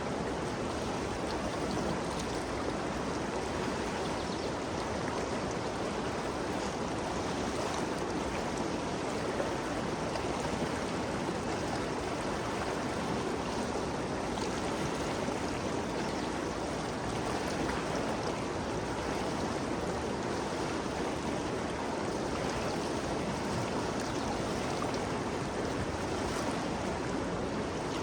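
Ganges River water flowing steadily, a constant rushing of the current.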